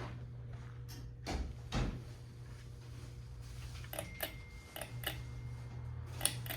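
Steady low electrical buzz from a Harbor Breeze Tilgman ceiling fan's motor, the sign of a bad capacitor. Two dull knocks come early on, then a run of sharp clicks about four to five seconds in and one more near the end.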